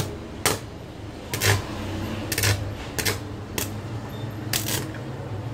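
Stick-welding electrode on a homemade welding machine striking an arc against scrap steel in about seven short sputtering bursts, each a brief spark-throwing contact, with a steady low hum underneath.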